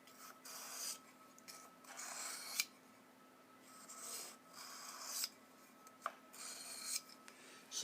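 A steel utility knife blade scraping in about six separate strokes, each under a second long, with short pauses between them.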